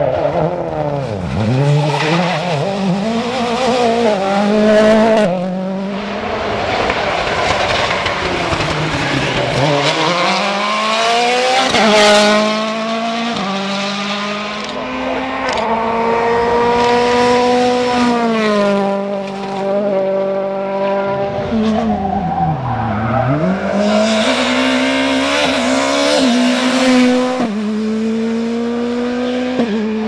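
Rally cars on a special stage at racing speed, engines revving hard. The pitch climbs through the gears and drops sharply on the downshifts, over and over, with a deep swoop down about a second in and again near the end.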